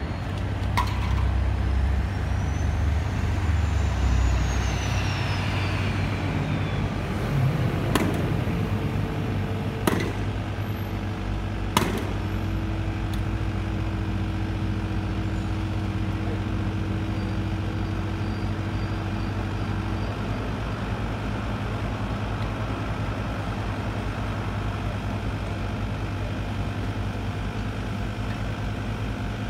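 Kubota mini excavator's diesel engine running at a steady low drone. Three sharp knocks come about two seconds apart, around a third of the way through.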